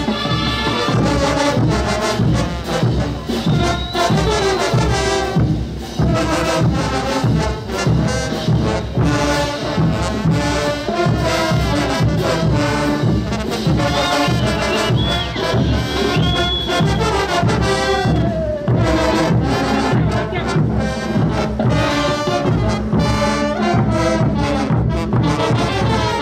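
Brass band playing a morenada, with trumpets and trombones over a steady, even drum beat.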